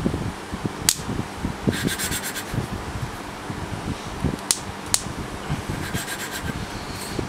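Valve being hand-lapped into its seat on a small air-cooled engine: a suction-cup lapping stick twisted back and forth on the valve, the grinding compound giving an irregular gritty scratching and rubbing, with a few sharp clicks.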